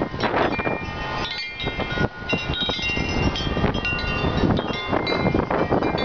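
Tubular wind chime swinging in gusty wind, its tubes striking over and over so that several ringing tones overlap. Heavy rumble of wind buffeting the microphone.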